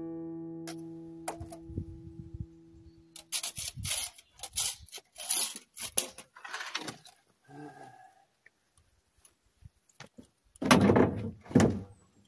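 Wooden boards knocking and clattering as a scrap-wood roof frame is handled and set onto a wooden chicken coop, with two loud thuds and scrapes near the end. Acoustic guitar music fades out over the first few seconds.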